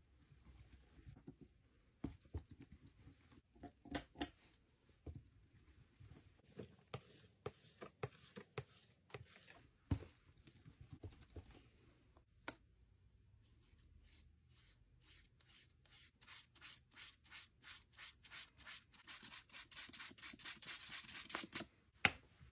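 Palette knife scraping and smearing thick paint on a palette, faint: scattered scrapes and taps, then from about two-thirds through a fast run of back-and-forth mixing strokes, about four or five a second, growing louder.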